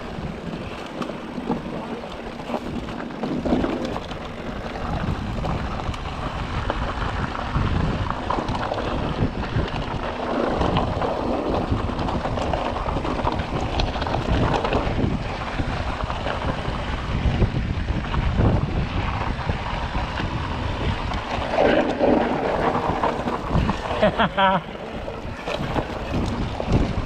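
Wind buffeting the camera microphone while an electric mountain bike rolls over a rocky dirt singletrack, with a steady rumble and many small knocks and rattles from the bike over rocks and ruts.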